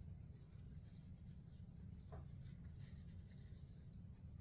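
Faint rubbing of a paper towel wiping down a Glock pistol barrel, scratchy and irregular, over a low steady hum.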